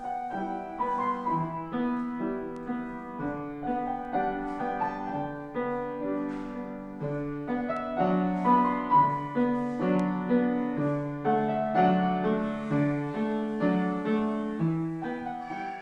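Piano music: a melody over chords, the notes changing about every half second.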